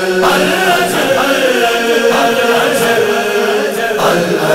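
A man chanting a noha, a Shia lament, in long drawn-out wavering phrases over a steady low drone.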